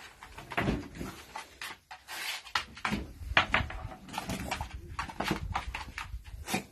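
Young beagle sniffing and panting in quick, irregular bursts as it searches for a scent, with a few scuffs and knocks.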